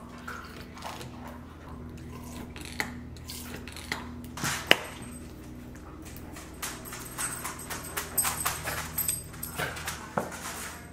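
Clinking and knocking of kitchen things on a stone countertop: a syrup bottle's pump pressed over a glass mason jar of ice, ice shifting in the jar, and bottles and a milk-frother jug picked up and set down. One sharp knock about halfway through, and a quicker run of clinks and taps near the end.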